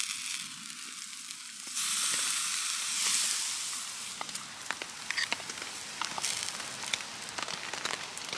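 Sirloin steak sizzling on a grill grate over a small wood-burning stove, a steady hiss that swells for a couple of seconds in the middle. Scattered sharp clicks and pops come in the second half.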